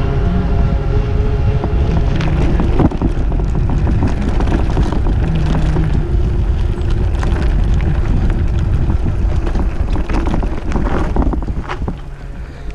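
Wind buffeting an action camera's microphone while riding a mountain bike, with frequent rattles and clatters from the bike over rough ground; the noise eases off near the end.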